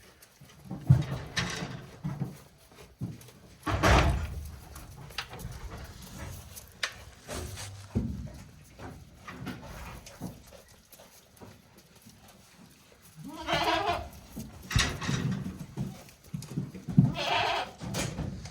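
Day-old goat kids bleating, with two clear bleats in the second half, among scattered bumps and rustling.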